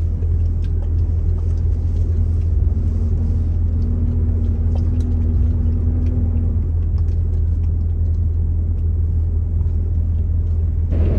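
Steady low rumble of a truck's engine and road noise, heard from inside the cab while driving.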